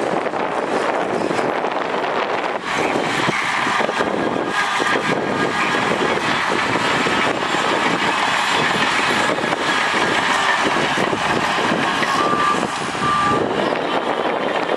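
Heavy diesel earthmoving machinery running steadily and loud, with two short beeps of a reversing alarm near the end.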